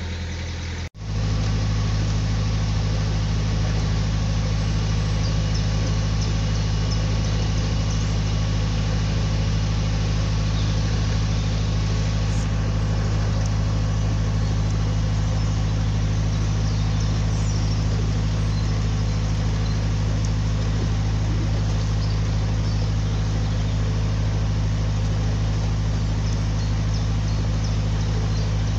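Narrowboat's diesel engine running steadily while cruising, a low even hum. It cuts out for an instant about a second in and resumes slightly louder.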